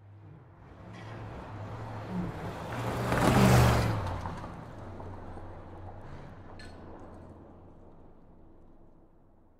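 Road traffic, with one vehicle passing close: the noise swells to its loudest about three and a half seconds in and then fades away over a low steady engine hum.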